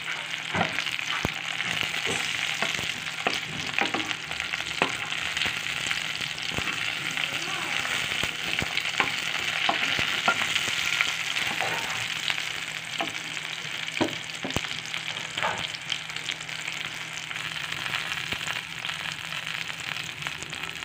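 Small red and green chillies and shallots sizzling in hot oil in a frying pan, a steady hiss with many small pops and ticks, and a spatula stirring them now and then. They are being fried until they wilt.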